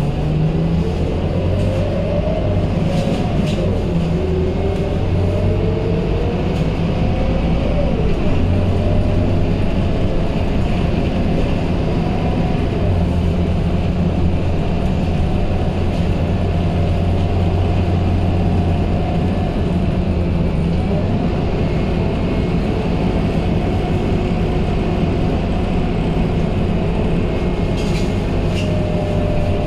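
Scania K230UB city bus's diesel engine and driveline heard from inside the passenger cabin as the bus pulls away and drives on. The pitch climbs over the first several seconds, falls at a gear change about eight seconds in, and then settles into a steady drone at road speed, with faint rattles now and then.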